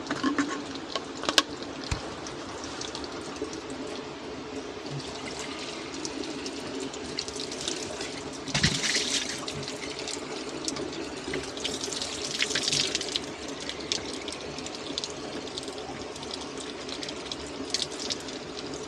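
Spring water running from spouts in a rock face and splashing steadily into the basin below. There are louder splashes a few times as a cup and bottle are held into the stream to fill.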